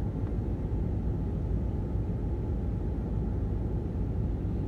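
Steady low rumble of a running car heard from inside the cabin.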